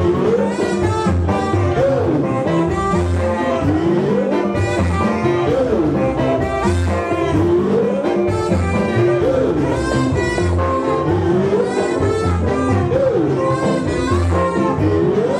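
Band music with a steady beat, saxophone and guitar, and a melodic phrase that rises and falls about once a second.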